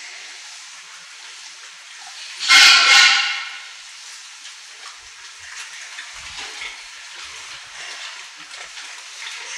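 A sow squealing loudly, two sharp cries in quick succession about two and a half seconds in, over the steady hiss of a pig barn.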